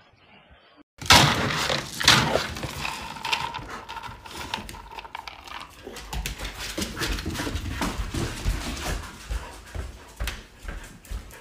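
Dogs scrambling and playing on a hardwood floor, their paws and claws clicking and thumping irregularly. The sound starts suddenly about a second in.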